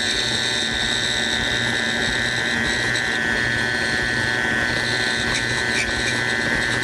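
KitchenAid stand mixer running with its flat beater, mixing thick cake batter in a stainless steel bowl: a noisy, steady motor whine with constant high tones over a low hum.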